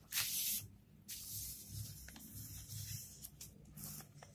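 Sheets of paper rustling as a page is slid into place: a short hiss of paper sliding near the start, then faint handling noises.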